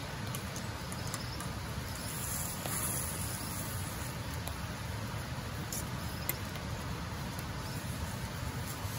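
French toast sizzling in a frying pan over a small gas camp stove, with a few light clicks of metal tongs against the pan.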